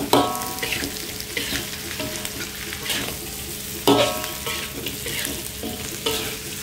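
Metal spatula stirring and scraping salted fish and chilies in a metal wok over hot oil, with a steady sizzle. The spatula knocks against the wok with a ringing clang, loudest just after the start and again about four seconds in.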